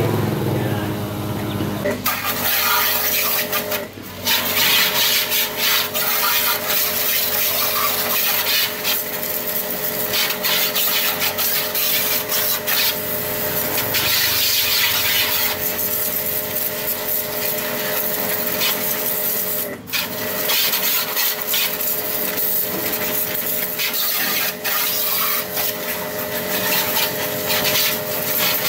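Power sanding tool rasping against a surface, its motor humming steadily under the rough scraping; it eases off briefly twice.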